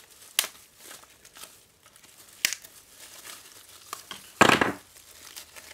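Foil laminate pouch of a lithium-polymer battery cell being peeled and torn off by hand in plastic gloves, crinkling throughout. Sharp tearing snaps come about half a second in and midway, with a longer, louder tear about four and a half seconds in.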